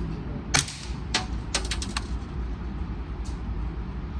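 Suppressed .22 rimfire AR-22 rifle with a Division 3 Olvr suppressor firing: two sharp shots about half a second apart, followed by a quick run of fainter clicks, over a steady low rumble.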